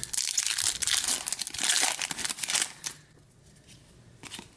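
Foil wrapper of a hockey card pack crinkling and tearing for about three seconds, then it goes much quieter with a few faint ticks.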